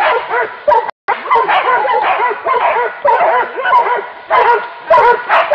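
Dogs barking and yelping rapidly, several barks a second and at times overlapping, as they bay at a pig. The sound cuts out briefly about a second in.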